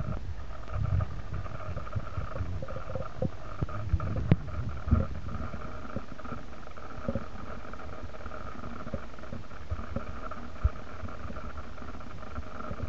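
Handling noise from a hand-held phone: low rumbles and a few sharp knocks, the loudest about four seconds in, over a steady faint hum.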